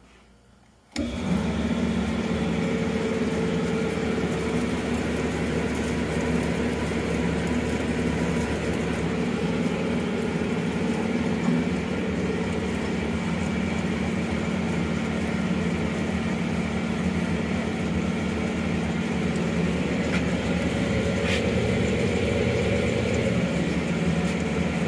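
JET VBS 400 vertical metal-cutting bandsaw switched on by a push button, its motor and blade coming up to speed about a second in and then running steadily with a constant hum.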